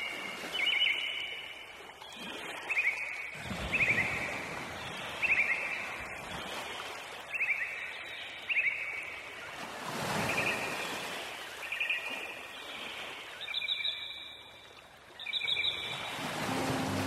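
A songbird repeating the same short, quick descending phrase over and over, about once every second or so. Underneath, a rushing background noise swells and fades several times.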